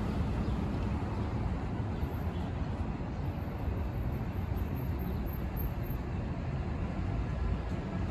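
Steady city-street ambience: a low, even rumble of traffic.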